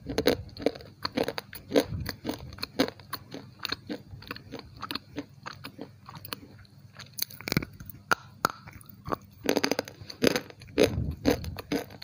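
Close-miked crunching and chewing of slate pencil in the mouth: a steady run of sharp crunches, busiest a little past halfway and again near the end.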